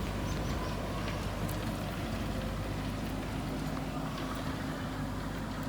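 A JCB backhoe loader's diesel engine running steadily, with a few faint clicks.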